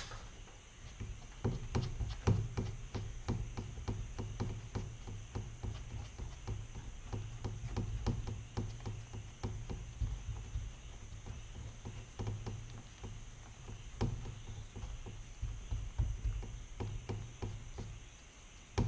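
Plastic spreader scraping and tapping on a paper-covered mixing board as body filler is folded together with its hardener: a run of many quick, irregular clicks and scrapes.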